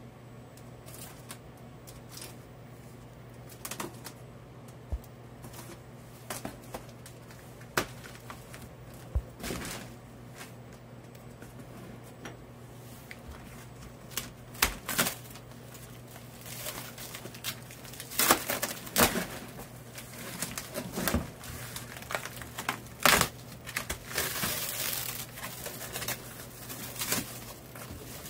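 Corrugated cardboard box being handled: scattered taps, scrapes and creasing of the cardboard as a flattened box is unfolded and its sides and flaps are folded up, sparse at first and much busier in the second half. A steady low hum runs underneath.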